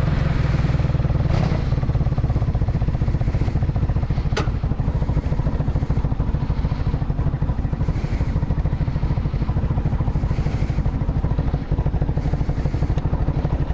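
Motorcycle engine idling steadily with an even, rapid low pulse, and a single sharp click about four seconds in.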